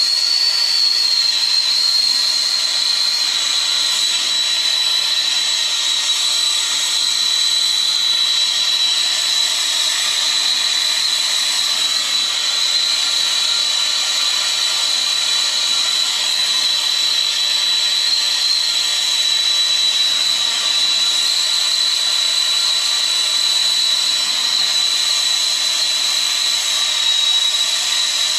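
Soldering torch with a small number 3 tip burning steadily with a hiss and a high, steady whistle, its flame heating 3/4-inch copper pipe for a sweat joint.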